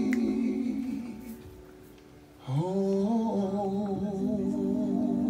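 Live soul band music: a held sung note and chord fade away, then about halfway through a voice slides up into a long held note with vibrato.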